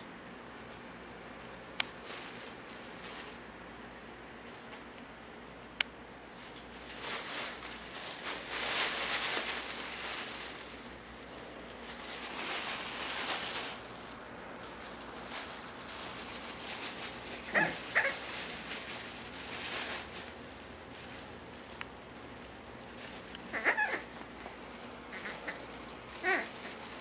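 Puppies at play: short, high yips a few times in the second half, over bursts of hissy rustling noise earlier on.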